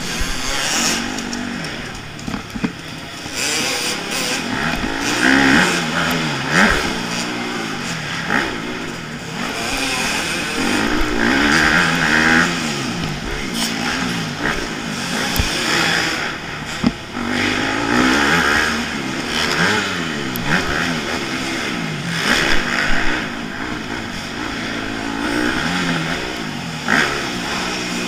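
Dirt bike engine heard from a camera mounted on the bike while riding a motocross track, revving up and down over and over, its pitch rising with each acceleration and dropping away off the throttle.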